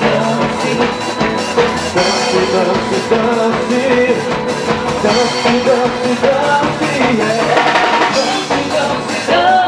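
Forró band playing with a drum kit keeping a steady beat under a melodic line, in a passage without sung words.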